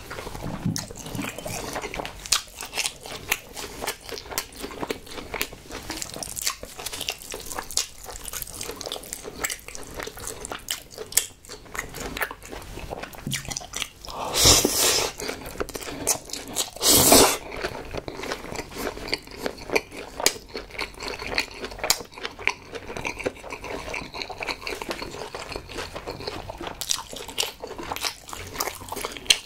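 Close-miked chewing and biting of chewy braised pig's trotters (jokbal) and spicy mixed noodles, a dense run of short mouth clicks. About halfway through come two loud slurps of the noodles, a couple of seconds apart.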